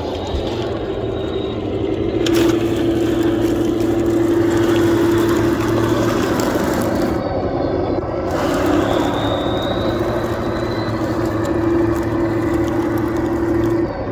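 Heng Long 1/16 Tiger 1 RC tank on the move: its electric drive motors and plastic gearboxes whine steadily under a constant clatter of plastic tracks over logs and dry leaves.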